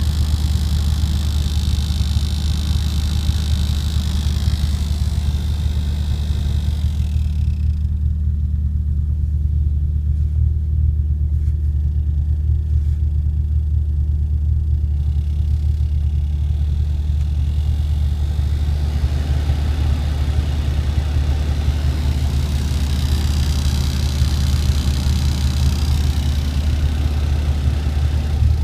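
Opel Corsa D OPC heater making a strange high-pitched noise over a steady low rumble. The high noise stops about seven seconds in and returns about two-thirds of the way through, for roughly eight seconds.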